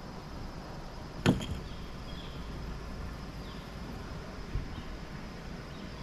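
A single sharp knock about a second in and a softer thump later, over a steady low outdoor background with faint high chirps.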